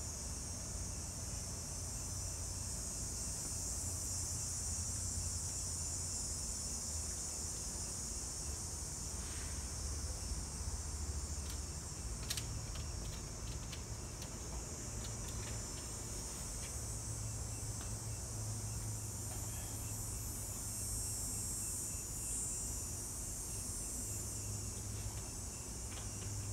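Steady high-pitched insect chorus with a low steady hum beneath it and a scatter of faint clicks about halfway through.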